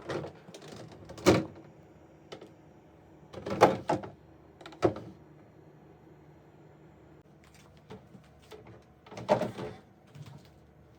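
A handful of separate knocks and clunks of household things being handled, such as doors or containers being set down, with quiet room tone between; the loudest come about a second in, around three and a half seconds in, and near the end.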